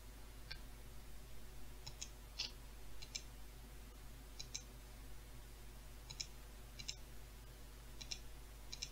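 Computer mouse clicking: about a dozen faint, sharp clicks at uneven intervals, several in quick pairs, over a steady low hum.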